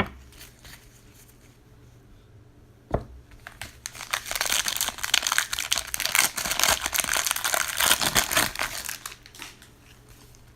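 Plastic foil wrapper of a trading card pack crinkling as it is torn open, in a dense crackly run lasting about five seconds, after a single sharp click.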